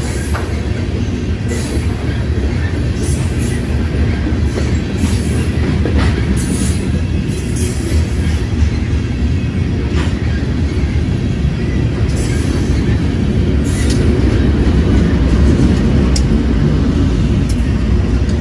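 BNSF grain train of covered hopper cars rolling past close by: a steady low rumble of steel wheels on rail, with brief high wheel squeals and clicks. Toward the end the rumble grows as the rear distributed-power diesel locomotives come past.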